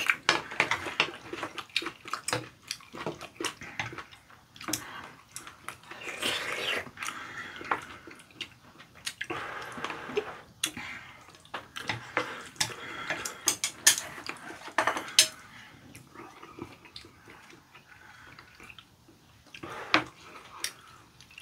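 Spoons and chopsticks clinking and scraping against ceramic bowls in scattered sharp clicks, with chewing of curry rice between them.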